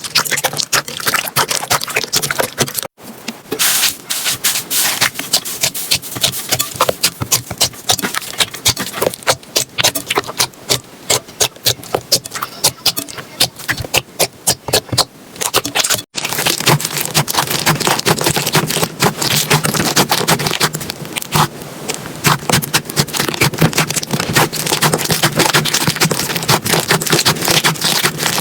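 Slime being squeezed and poked by hand, a dense run of small sticky clicks and pops, breaking off abruptly twice as one clip gives way to the next.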